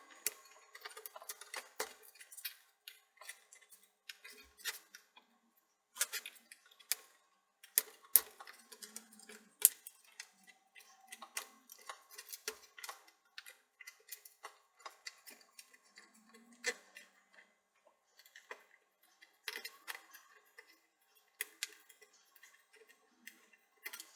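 Irregular plastic clicks and snaps from prying a plastic trim piece off a laptop's case with tools, with scattered sharper cracks.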